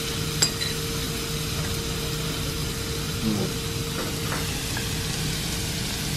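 Kimchi fried rice sizzling in a cast-iron skillet on a tabletop burner: a steady frying hiss, with a sharp click of utensils about half a second in and a couple of faint clinks later, over a steady hum.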